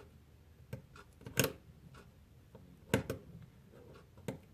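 Small connectors inside a Fitbit Blaze being pressed into their sockets on the board, giving about five short, sharp clicks and taps spread over a few seconds.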